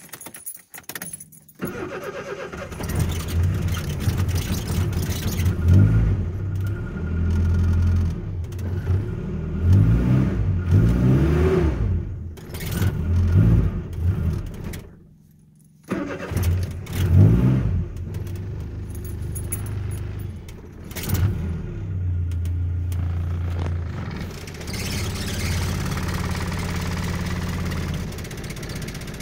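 Cold engine started without choke in cold weather: it catches about two seconds in and is kept alive with throttle blips, the revs rising and falling. It dies out about halfway, restarts at once, and then settles into a steadier run.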